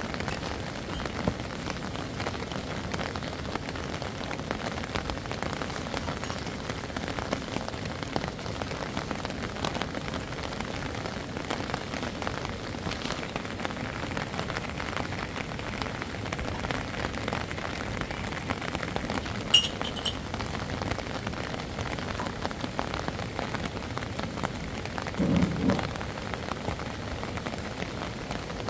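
Steady rain falling, a dense patter of drops on the ground and the roof. A sharp click comes about two-thirds of the way through, and a brief low thump a little later.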